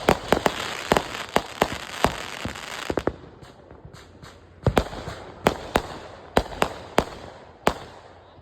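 Backyard consumer fireworks going off: a fast run of sharp bangs over a crackling hiss for about three seconds, then separate bangs about once or twice a second that grow fainter and stop near the end.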